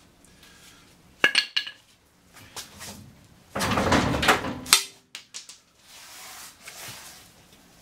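Metal tools and front-suspension parts clinking and clanking. There is a ringing metallic clink about a second in, a louder noisy scrape lasting about a second near the middle, then a few sharp clicks.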